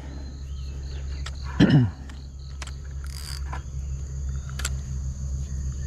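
Insects calling steadily outdoors, a constant high whine with a pulsing chirp over it, with a few light clicks from handling a spinning rod and reel. A short falling voice sound, like a brief hum or grunt, comes about one and a half seconds in.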